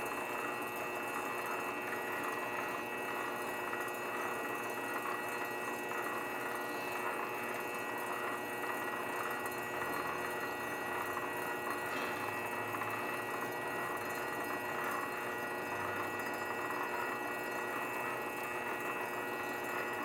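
Grizzly lathe running steadily at constant speed, its motor giving a continuous hum with a fixed whine.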